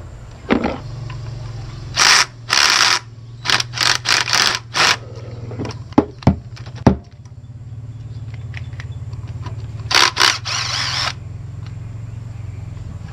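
Cordless drill/driver running in short bursts, with a few sharp clicks in between, as it tries to back out a rusted ignition-coil mounting bolt. A steady low hum runs underneath.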